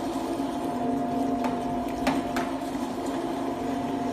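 A #22 stainless-steel electric meat grinder running with a steady hum while meat is fed through it and minced, with a few light knocks about one and a half to two and a half seconds in.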